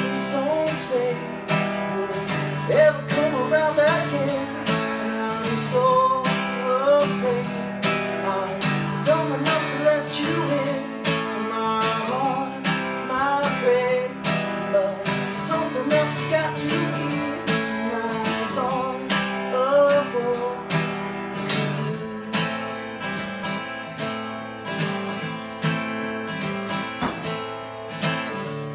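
A man singing to his own strummed acoustic guitar; a little after twenty seconds the voice stops and the guitar strums on alone.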